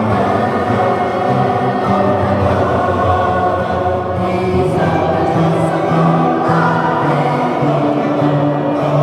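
Mixed choir singing a canon in a reverberant cathedral, many voices holding sustained notes that move in steps.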